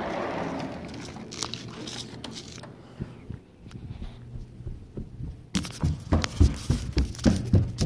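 Handling noise from a phone held close to the microphone: rubbing and scattered clicks, then from about two-thirds of the way in a quick run of knocks and thumps as plastic toys are bumped about.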